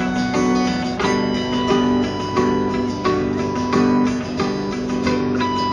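Rock band playing live: a guitar-led instrumental passage with a steady rhythm, recorded on a phone in front of the stage.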